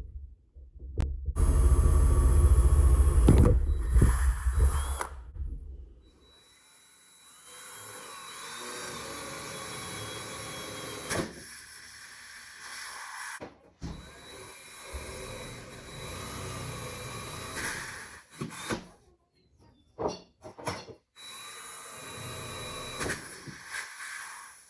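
Power drill running in several runs: a loud stretch in the first few seconds, then longer, quieter runs broken by short pauses.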